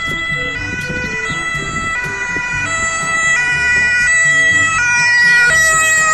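German ambulance's two-tone siren, alternating between two pitches about every 0.7 seconds and getting louder as the van approaches.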